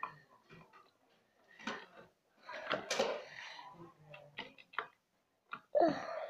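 Squeeze bottle of glue being squeezed hard, giving sputtering squirts of glue and air along with light clicks of plastic being handled. The two loudest sputters come about three seconds in and near the end.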